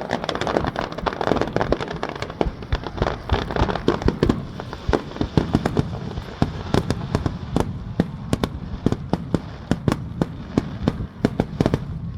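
Fireworks barrage: a dense run of sharp bursting bangs, several a second, stopping abruptly near the end.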